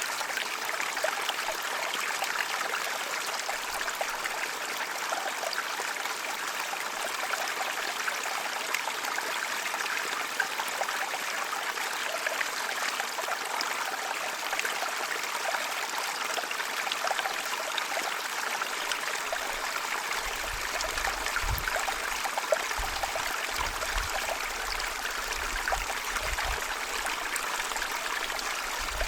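Small headwater stream flowing gently, a steady trickling and babbling of water. Faint low rumbles come in under it about two-thirds of the way through.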